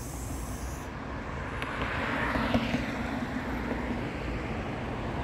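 A vehicle passing by, over a steady outdoor hum. It swells to its loudest about two and a half seconds in, then fades.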